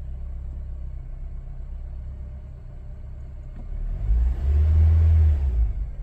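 2007 Honda Civic's four-cylinder engine idling, heard from inside the cabin. About four seconds in it is briefly revved, rising and falling in pitch. This is just after a repair for a cylinder 2 misfire, which the owner thinks may have fixed it.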